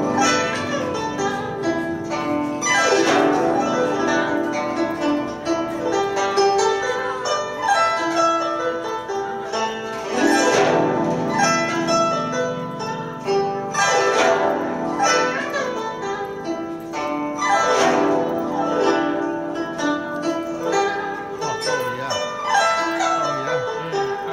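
Instrumental background music on plucked strings, with a sweeping run across the strings every few seconds over sustained notes.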